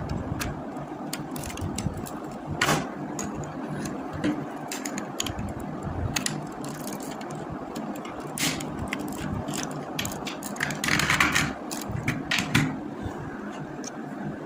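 Plastic Lego pieces clicking and rattling as they are handled and fitted, in irregular small clicks with a few louder clusters, over a steady low hum.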